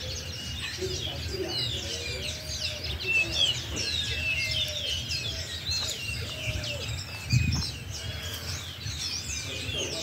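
A chorus of many small birds chirping and twittering at once, a dense run of quick, high calls overlapping throughout, with a few lower, arching calls repeating in the middle. A brief low thump comes about seven seconds in.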